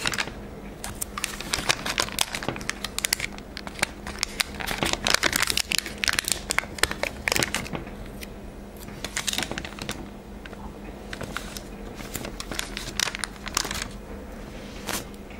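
Small glossy vehicle stickers being peeled off their backing sheet and handled by fingers: an irregular run of crinkling, crackling and small ticks, busiest in the middle, over a faint steady hum.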